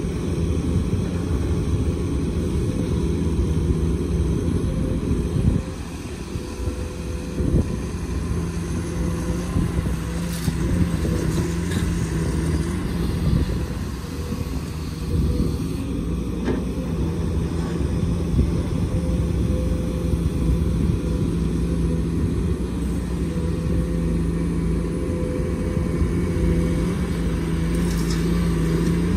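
Diesel engines of a Komatsu hydraulic excavator and dump trucks running steadily at work, a low rumble with a steady hum, easing briefly about six seconds in.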